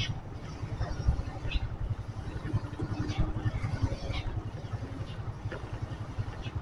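Motorcycle engine and road rumble heard from the rider's own bike as it follows a heavy lowbed truck at low speed: a steady, pulsing low rumble with a few faint short hisses.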